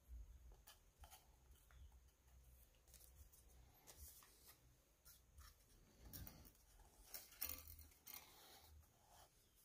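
Faint handling of subwoofer driver parts: scattered light clicks and rustling scrapes, the sharpest click about seven seconds in, over a low hum.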